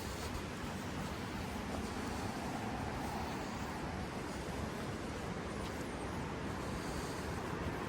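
Mountain river rushing steadily over rocks, an even unbroken roar of flowing water.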